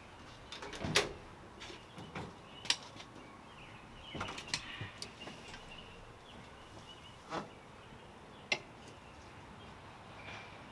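A few scattered light clicks and knocks, the loudest about a second in, over a quiet background with faint high chirps.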